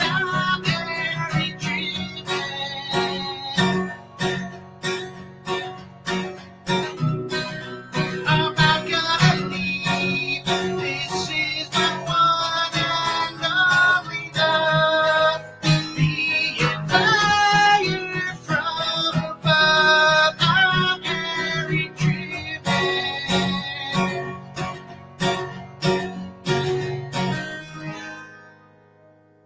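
Acoustic guitar strummed in a steady rhythm, a song being played; near the end the last chord dies away.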